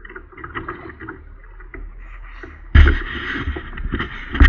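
Fishing kayak being pushed off the shore into the water: the hull scrapes and knocks, and a louder scraping rumble starts suddenly near three seconds in, with sharp clicks throughout.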